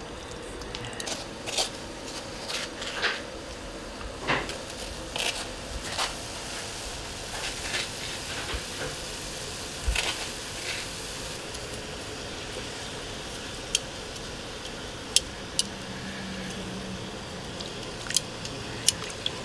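Metal tongs clinking and scraping against an aluminium pot as pieces of pork are turned in simmering sauce, over a steady background hiss. The clinks come irregularly and often in the first half, then as a few sharp, separate ticks near the end.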